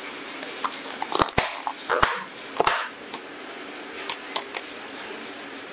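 Clear plastic takeaway containers being handled: a run of sharp clicks and crinkles as the lids are pressed on and the containers are set down and stacked, then a few lighter clicks. A steady hiss lies underneath.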